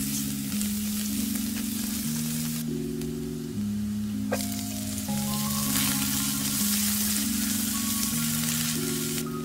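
Minced garlic sizzling in hot oil in a frying pan. The sizzle breaks off briefly about three seconds in. Chopped onion is tipped in a little after four seconds, with a single click, and the frying then carries on louder. Soft background music plays throughout.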